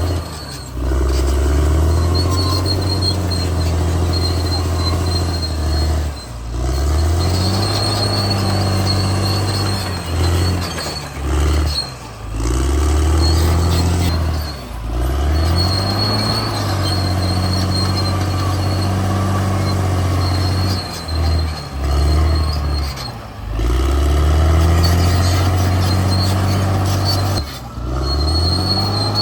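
Caterpillar D6R XL bulldozer's diesel engine working under load, repeatedly dropping off and climbing back up in pitch every few seconds as it pushes and changes direction, with an on-and-off high squeal from the steel tracks.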